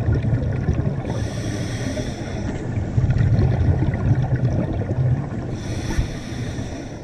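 Scuba regulator breathing heard underwater: a hiss about a second in and again near the end, with a low bubbling rumble between.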